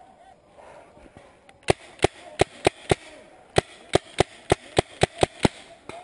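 Magazine-fed paintball marker firing a rapid string of about a dozen sharp shots, roughly three a second, starting a couple of seconds in, with a short break about halfway through.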